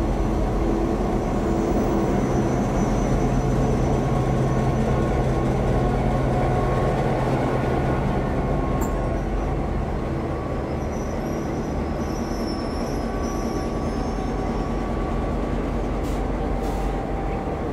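Heritage train hauled by vintage diesel locomotives running, a steady engine drone and rail rumble that slowly eases off. A faint high squeal joins for a few seconds past the middle.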